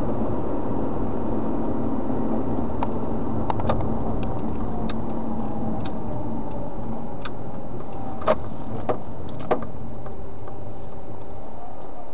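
Steady engine and tyre noise inside a moving car, recorded by a dashcam, as the car slows and pulls off the road into a parking lot. Three short, sharp clicks come close together a little over eight seconds in.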